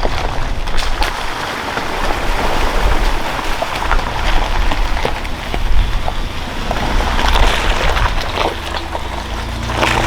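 Truck driving on a gravel backcountry road: steady tyre crunch and low rumble, with many small stones clicking. Steady low tones come in near the end.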